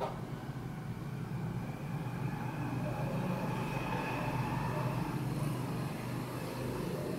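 Steady low hum under an even background hiss, with a faint high tone drifting in around the middle and a sharp click at the very start.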